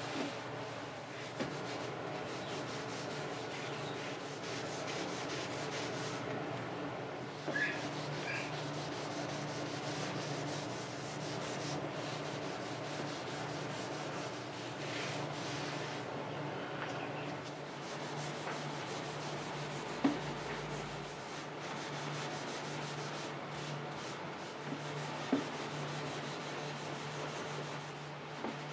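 Steel wool wet with alcohol scrubbing steadily over the old finish of a mahogany desk, washing off the dirt, with a steady low hum underneath and a few light clicks.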